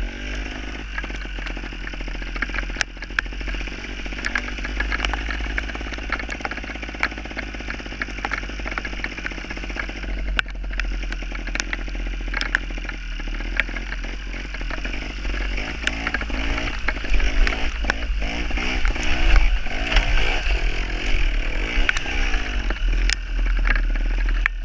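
Gas Gas two-stroke trials motorcycle engine running under way, revving up and down, with the pitch rising and falling more often in the second half. Scattered sharp clicks and a steady low rumble run under it.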